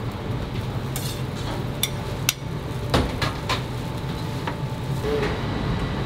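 Kitchen clatter: about half a dozen sharp, separate knocks and clinks of utensils over a steady low hum.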